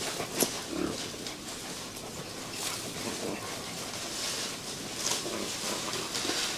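Bắc Hà puppies play-fighting: faint scuffling with a few short puppy noises.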